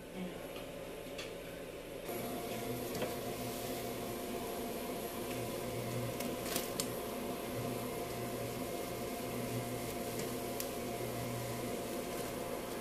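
An appliance motor running with a steady hum and hiss, a little louder after about two seconds, with a few faint clicks.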